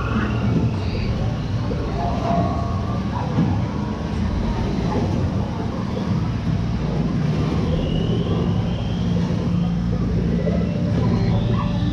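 Dark-ride ambient soundscape on a boat ride: a steady low hum with scattered short, high chirping calls over it.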